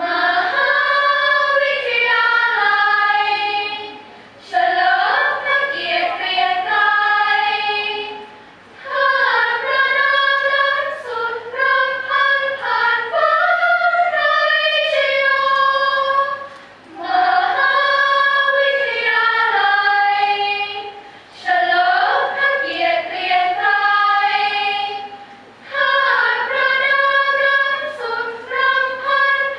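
Women's student choir singing a cappella in harmony, in sung phrases of about four seconds each with short breaks between them; the singing starts right at the beginning.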